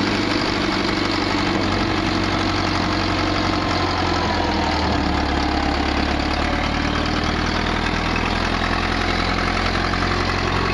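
Case 780 backhoe loader's diesel engine running steadily, its low note growing heavier for a few seconds from about two seconds in.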